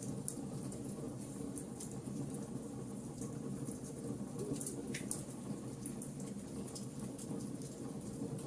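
Wood fire burning in a fireplace: a steady low rush of flame with frequent small crackles and pops, one slightly sharper pop about five seconds in.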